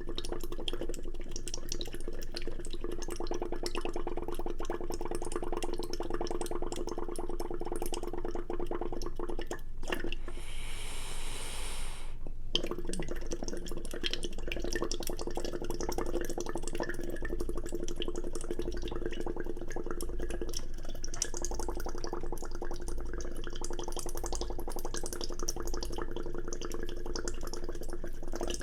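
Close-miked wet slurping and eating sounds, a dense crackle of small clicks over a steady hum. About ten seconds in, the hum drops out for roughly two seconds under a bright hiss.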